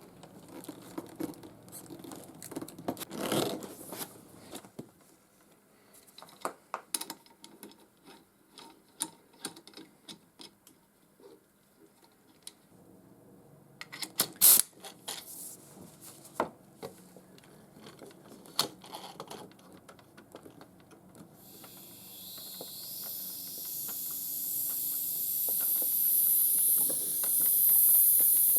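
Small metal parts clicking and clinking as they are handled and fitted by hand. A louder cluster of knocks comes about halfway through, and from about two-thirds of the way in a high hiss rises and grows steadily louder.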